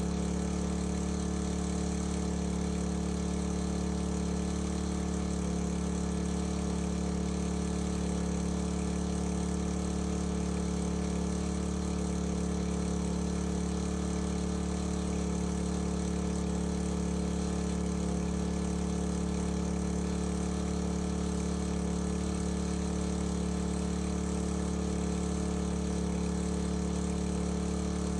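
Engine-driven water pump running steadily at a constant speed while pumping water out for ember-attack protection.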